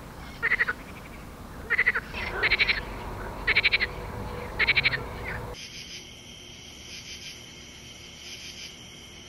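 Frogs calling in short, rattling pulsed croaks, five in the first five seconds. About five and a half seconds in, the sound cuts abruptly to a quieter, steady high-pitched insect chorus.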